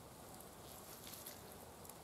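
Faint crackling of a low campfire, a few soft ticks over a quiet hiss.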